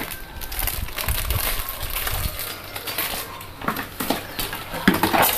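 Plastic washbasins being lifted off a wooden bench and handled, with rustling, scuffing and short knocks, and clinks from the metal spoon and chopsticks inside them.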